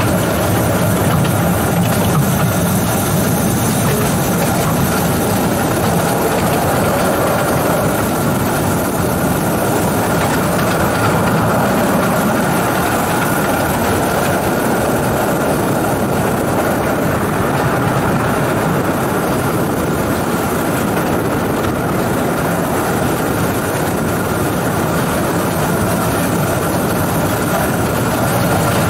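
Small 2-foot-gauge electric locomotive running steadily along the track, heard from its cab: an even running rumble of motor and wheels on the rails with a steady whine over it.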